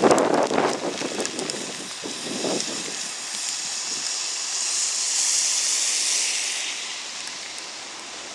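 Steady hiss of hard rain, with wind buffeting the microphone in the first second or so. The hiss swells and fades again a little past the middle.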